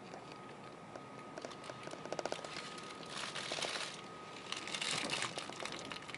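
Running noise inside a moving Meitetsu μSKY train carriage, with a faint steady whine, scattered crinkling and crackling, and two louder rushing bursts about a second long, around three and five seconds in.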